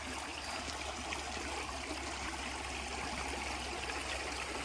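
Creek water running steadily beneath a footbridge, an even rushing with no let-up.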